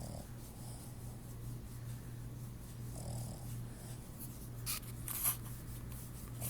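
Boston terrier snoring in her sleep: a steady low snore with slow breaths about three seconds apart, and two short sharp noises near the end.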